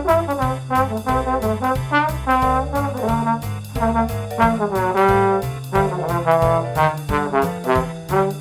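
Trombone improvising a jazz solo, running from note to note with slides between some of them, over a backing track with a walking bass line and swung drums.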